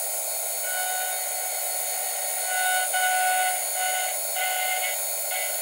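Milling machine end mill cutting a pocket into an aluminium motorcycle crankcase: a steady hiss with a whistling whine at one pitch that comes and goes, a little louder about halfway through.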